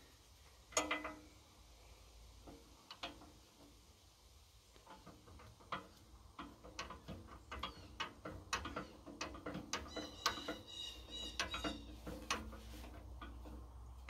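Faint, irregular metallic clicks and small rattles from a backhoe joystick's control linkage as the nut that sets its depth is turned and the lever is worked by hand. The clicks are sparse at first and come quicker from about five seconds in.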